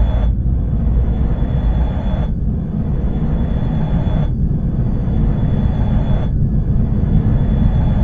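Dark ambient intro soundscape: a heavy, steady low rumble with a hissing upper layer that drops out and swells back about every two seconds, over a faint high steady tone.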